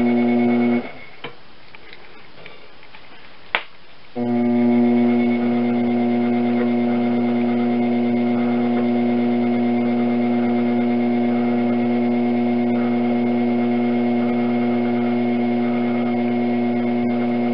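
Electric potter's wheel motor humming steadily while the wheel turns. The hum cuts out about a second in, with a single click in the gap, and comes back abruptly about four seconds in.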